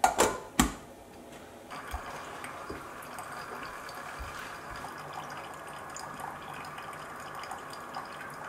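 Two sharp knocks, then about two seconds in a Velvetiser milk frother starts up and runs with a steady whir as it froths oat milk.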